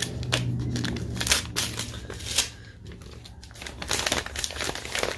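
Packaging crinkling and tearing as a wrapped pack of comic books is opened by hand: a string of short rustles and crackles that eases off briefly about halfway, then picks up again.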